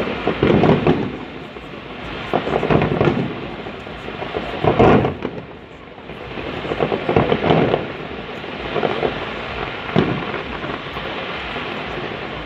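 Fireworks display: aerial shells bursting in a string of booms, one every one to two seconds, the loudest a little before the middle, over a steady rolling rumble like thunder.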